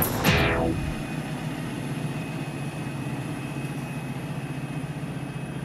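A falling whoosh as the music ends in the first second, then a box delivery truck's engine idling steadily with a low hum.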